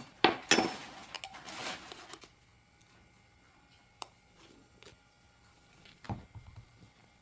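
A metal spoon clinking against a jar a few times and a short rustle. Then quiet room tone with a single faint click about four seconds in.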